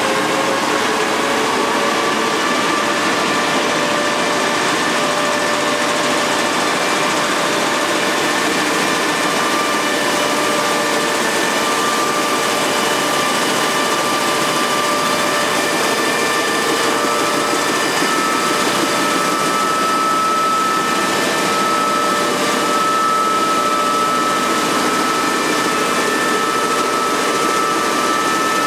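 Müller Martini Progress two-colour web offset printing press running: a steady mechanical whir with several held whining tones, which rise slightly in pitch in the first seconds as the press comes up to speed.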